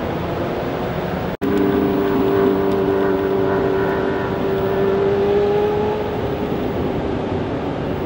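A motor vehicle's engine humming at a steady pitch for about four seconds, rising a little before it fades, over a constant rushing noise. The sound cuts out for an instant about a second and a half in.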